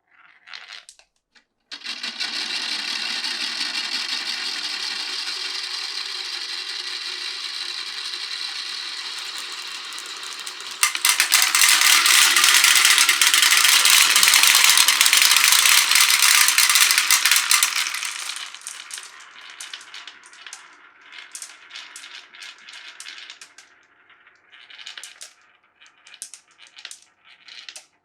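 Glass marbles rolling down a marble run's tracks. A steady rolling sound starts about two seconds in, jumps suddenly to a much louder, denser rolling clatter about eleven seconds in, then thins out at around eighteen seconds into scattered clicks of single marbles.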